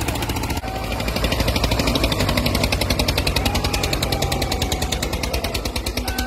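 Diesel tractor engines, a red Eicher and a green John Deere, running flat out under full load as they pull against each other in a tug-of-war, the exhaust chugging in a rapid, even pulse.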